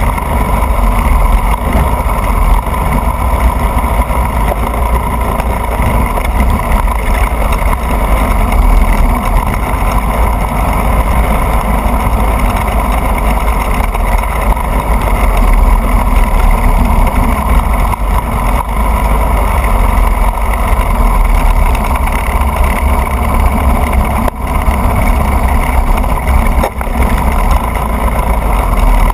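A racing go-kart's engine running hard through a race, heard from a camera mounted on the kart itself, over a heavy low rumble of wind and chassis vibration. The level stays loud throughout, with two brief dips near the end.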